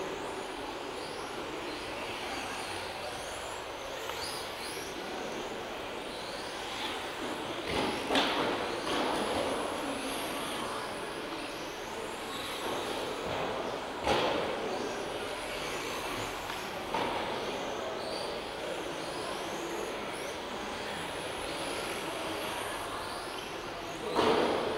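Electric 1/10-scale RC touring cars with 17.5-turn brushless motors racing past, their motors whining up and down over steady tyre noise, echoing in a sports hall. A few sharp knocks stand out, about a third of the way in, just past halfway, and at the very end.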